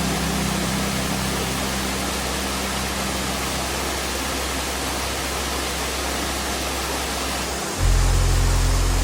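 Steady rush of falling water from a waterfall, under background music of sustained low notes; a deeper, louder note comes in near the end.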